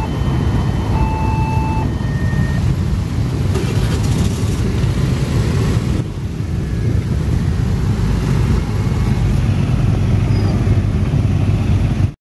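Motorcycle engines and road traffic at a railway level crossing, a steady low rumble as the queued bikes and a truck move off across the tracks. Short pitched tones sound on and off in the first two seconds.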